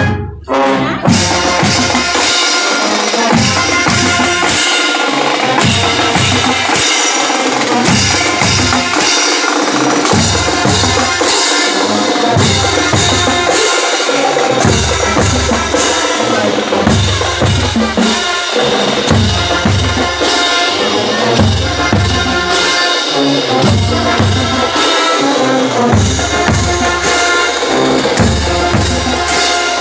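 Marching band playing a percussion-led passage: bass drums keep a steady beat under snare drums, with pitched instruments sounding beneath. The sound drops out briefly right at the start, then the drumming comes back in.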